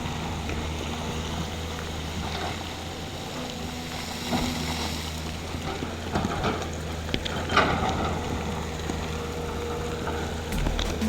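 Diesel engine of a heavy earthmoving machine running steadily, with a few short knocks and scrapes of rock and debris about a third of the way in, at about two-thirds, and near the end.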